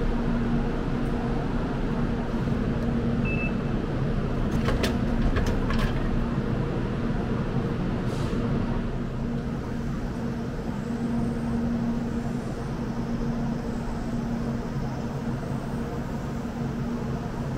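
Drinks vending machine in use: a short electronic beep about three seconds in, then several sharp clunks as a bottle drops into the tray, over a steady low hum and outdoor background noise.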